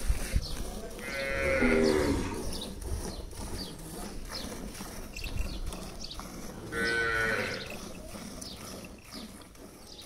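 Gir cattle mooing twice, a short call about a second in and another around seven seconds. Under the calls, faint milk squirts hit the pail at an even pace as the cow is milked by hand.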